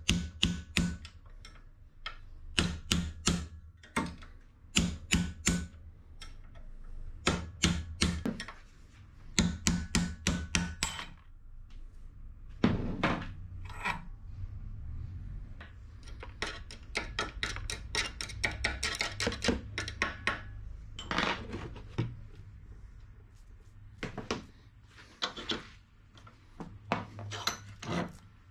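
Hammer blows and metal clinks on an old car shock absorber held in a bench vise, as it is being taken apart. The blows come in short bursts of several quick strikes with a slight metallic ring. Later there is a denser run of lighter taps and knocks.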